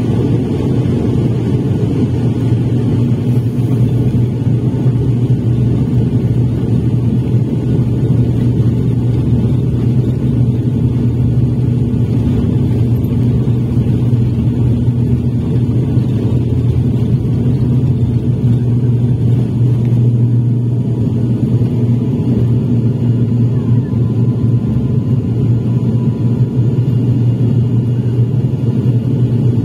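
Twin turboprop engines of an ATR 72 at takeoff power, heard from inside the cabin: a loud, steady propeller drone with a deep hum through the takeoff roll and liftoff.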